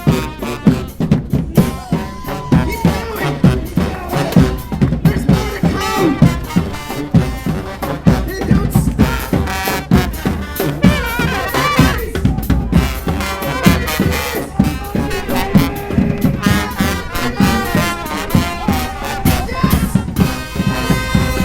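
Brass street band playing: horns over a driving beat of bass drum and snare.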